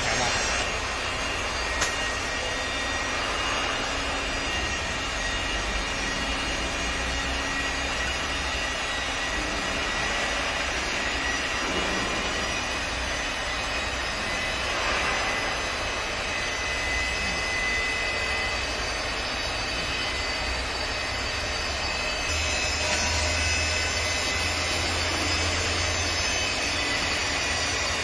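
CNC wood turning lathe running, spinning a wooden spindle blank while the cutter shapes it: a steady mechanical whir. There is a click about two seconds in, and a low hum grows louder about 22 seconds in.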